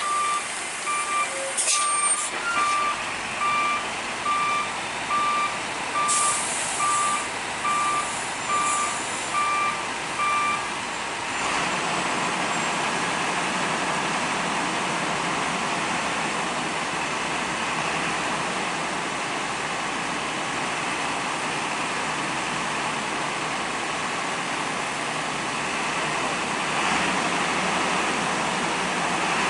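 Truck reversing alarm beeping at an even pace, about one and a half beeps a second, with a couple of short hisses; the beeping stops after about eleven seconds. A steady rushing noise of traffic follows.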